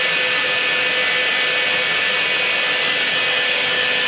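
Hair dryer blowing steadily on high, heating the Got2b glue under a lace wig so it sets.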